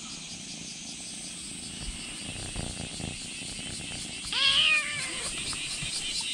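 A kitten meows once, about four seconds in, a clear call lasting just under a second. Insects chirr steadily throughout.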